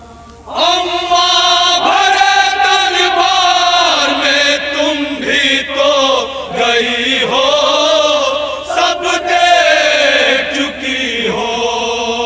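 Men's voices chanting a noha, a Shia mourning lament, through a microphone and loudspeaker, in long, drawn-out, wavering melodic lines. The chant starts about half a second in.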